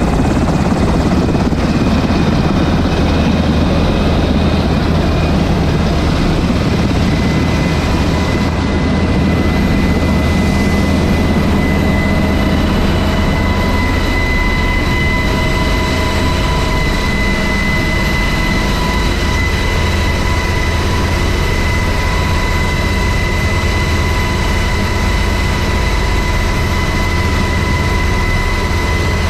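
Big military helicopter running close by: a loud, steady rotor and engine noise with a high steady whine that grows stronger about halfway through.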